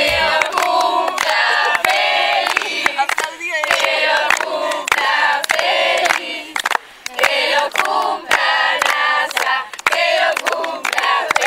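A crowd of young voices singing together loudly in phrases, with sharp clicks scattered throughout.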